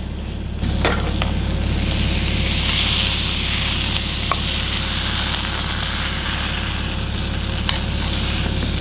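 Meatballs in sauce sizzling in a hot frying pan, with a few light clicks of a wooden spoon against the pan as they are scooped out.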